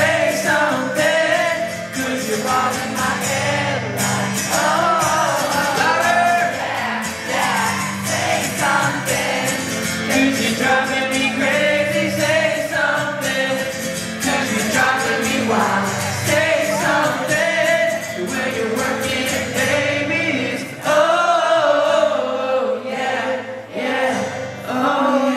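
Live pop music over a PA: a male lead vocal singing over a backing track with a steady bass line.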